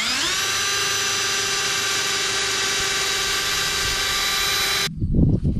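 Power drill running at a steady high speed, winding up in pitch at the start, then stopping abruptly near the end. A few heavy thumps follow.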